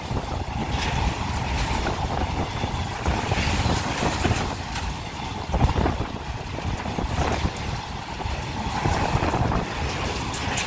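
Covered boxcar wagons of a goods train rolling past close by: a steady rumble of steel wheels on the rails, broken by frequent short clanks and knocks.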